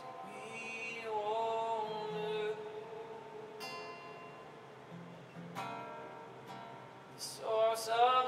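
Slow worship music: acoustic guitar with sustained tones, and a voice singing softly in places.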